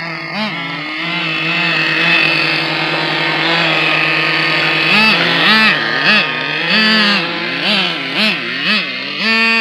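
Small nitro RC car engine running at a steady high pitch, then from about halfway revving up and down in quick short blips, about two a second.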